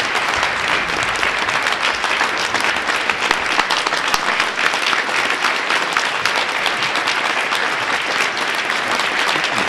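Audience applauding: many hands clapping in a dense, steady ovation at the close of a speech.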